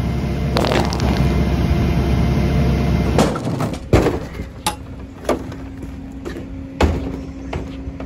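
A steady low rumble, then a series of sharp clunks and knocks spaced a second or so apart, typical of a portable toilet's plastic door and latch being worked.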